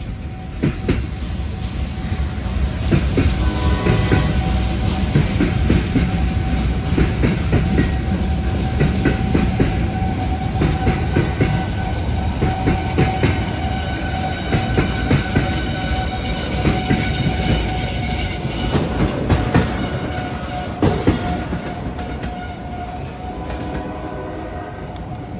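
Cars of a short CSX manifest freight train (refrigerated boxcars, a covered hopper and tank cars) rolling past, their steel wheels clicking and clacking over the rail joints above a low rumble, with a steady high tone underneath. The sound eases off near the end as the last cars go by.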